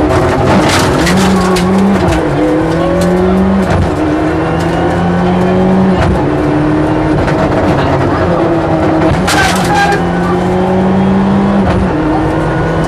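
In-cabin sound of a Mitsubishi Lancer Evo rally car's turbocharged four-cylinder engine pulling hard through the gears, its pitch climbing and then dropping at each shift, several times over. Short bursts of sharp cracks come near the start and again about nine seconds in.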